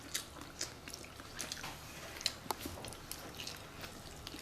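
People eating at the table: chewing and biting into fried spareribs, with scattered light clicks throughout.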